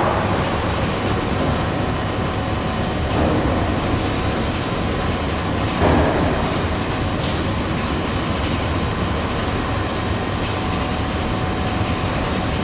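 Timber plant's rail-mounted transport wagon running along its steel track with a load of wood: a steady rumble with a faint drive hum, briefly louder twice, about three and six seconds in.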